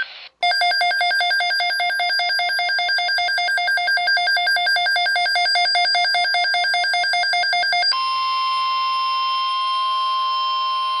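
Weather radio alert: a rapidly pulsing electronic beep for about seven seconds, then from about 8 s in a steady single-pitched tone, the NOAA Weather Radio 1050 Hz attention tone that announces a severe weather alert.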